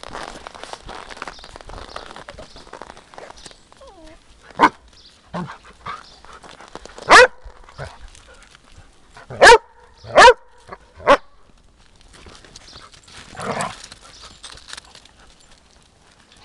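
A dog barking: five loud, sharp barks spread between about four and eleven seconds in, then a softer one. Footsteps crunch on packed snow in the first few seconds.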